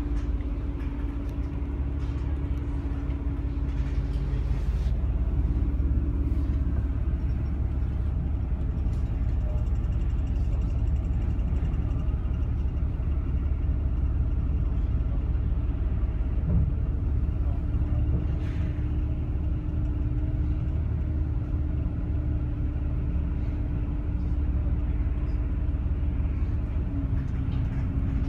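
Inside a Bustech CDI double-decker bus on the move: a steady low rumble from the drivetrain and road. A held whining tone sits over it, drops out for a long stretch in the middle, and comes back, shifting slightly in pitch a few times.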